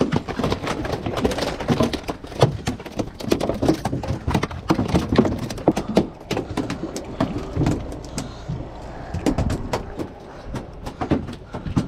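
Rapid, irregular knocks and clatter over a steady low rumble of wind and water.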